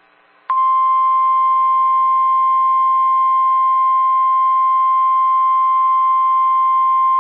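NOAA Weather Radio warning alarm tone: a single steady, loud 1050 Hz tone that starts about half a second in and holds unchanged. It is the alert that announces an emergency warning broadcast.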